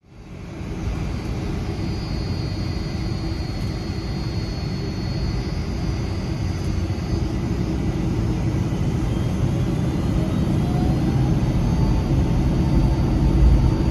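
Boeing 757-300 jet engines at takeoff power, heard from inside the cabin during the takeoff roll. A steady low rumble of engines and wheels on the runway grows slowly louder, with a faint higher whine above it.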